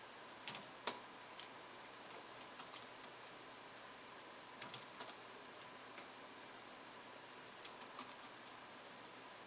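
Quiet, scattered clicks of a computer keyboard and mouse, some single and some in quick runs of two to four.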